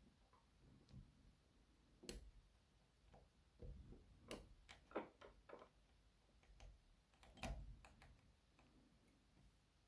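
Faint, irregular metal clicks and scrapes as a thin tool picks at the retaining C-clip on the plug of a DOM RS Sigma euro cylinder.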